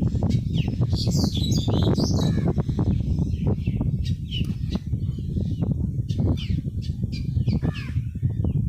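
Birds chirping in short, falling chirps, repeated every second or so, over a constant low rumble with many sharp clicks.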